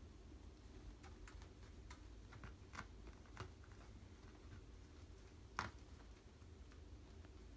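Faint, scattered ticks and taps of tiny kittens' paws and claws moving over a blanket and tile floor, with one louder tap about five and a half seconds in.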